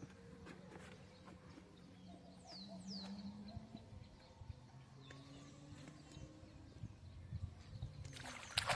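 Faint outdoor background with a low steady hum and two quick falling bird chirps about two and a half seconds in. Near the end comes a short burst of rustling and handling noise.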